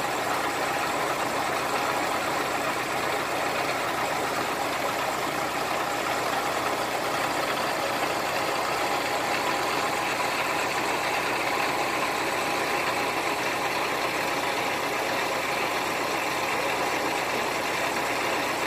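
Truck-mounted crane's engine running steadily, an even drone with no changes.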